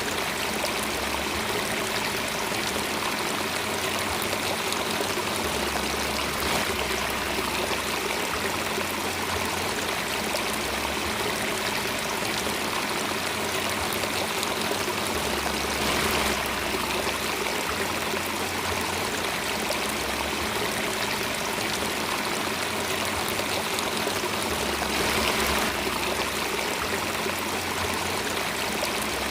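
Flowing water, a steady, even rush with no breaks.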